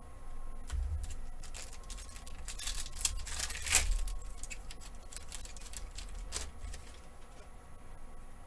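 Hands crinkling a foil trading-card pack wrapper and sliding cards against one another, with irregular crackles and scrapes. The loudest crinkling comes about three to four seconds in.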